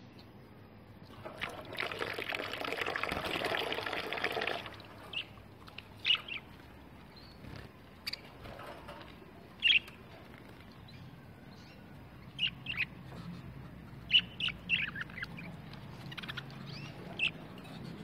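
Pet budgerigars bathing: about three seconds of splashing water near the start, then short, sharp budgie chirps scattered through the rest, several in quick succession toward the end.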